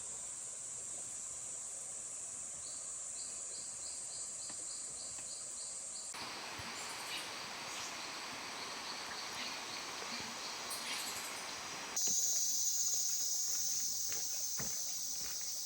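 Rainforest insect chorus: a steady high-pitched buzzing drone that changes abruptly twice, growing louder near the end. For a few seconds before the first change a faint pulsing call repeats about four times a second.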